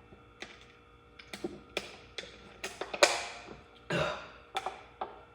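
Irregular sharp taps, clicks and scrapes of a tool working at an aluminium soda can to puncture a hole in its side. About ten separate strokes, the loudest one about three seconds in.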